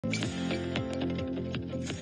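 Intro music with a steady beat, about four beats a second.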